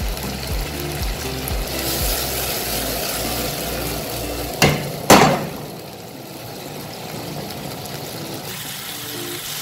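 Sausage and vegetables in red wine sizzling in a frying pan as the alcohol cooks off, over background music with a steady beat. Just under five seconds in there are two loud clanks as the pan is shaken on the stove grate, and the sizzle is quieter afterwards.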